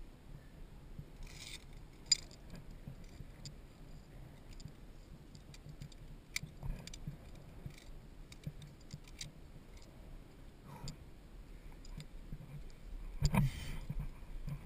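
Via ferrata carabiners clicking and scraping against the steel safety cable: scattered sharp metallic clicks, with a louder clatter about thirteen seconds in.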